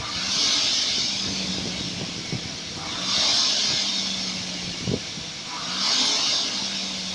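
RP3 dynamic rowing ergometer's air-braked flywheel whooshing as it spins up on each drive, three strokes roughly every three seconds, with a faint low hum and a short knock about five seconds in.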